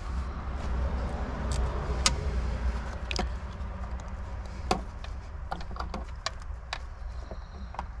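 Small ratchet and socket working the 10 mm bolts that hold the Honda S2000 shifter assembly, giving scattered sharp metallic clicks over a low steady rumble.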